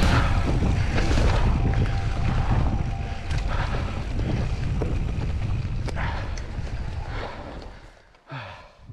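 Wind buffeting the microphone over the rattle and knocks of a mountain bike riding a rough trail, fading away as the ride slows to a stop near the end, followed by one short sound.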